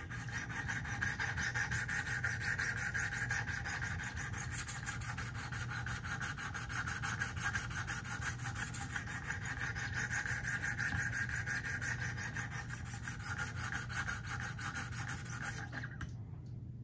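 600-grit diamond stone on a Wicked Edge guided sharpener scraping back and forth along a pocket knife's steel edge in quick, even strokes. This is a marker test, checking where the stone meets the edge at 16.5 degrees. The strokes stop about a second before the end.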